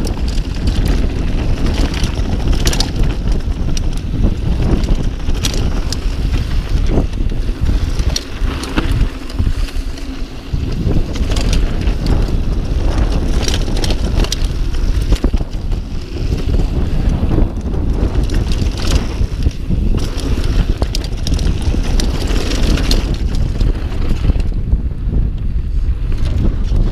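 Mountain bike ridden fast along a dirt trail, recorded on the rider's camera: wind buffeting the microphone over the tyres' rolling noise, with frequent clicks, knocks and rattles from the bike over bumps. The wind rumble eases briefly about a third of the way through.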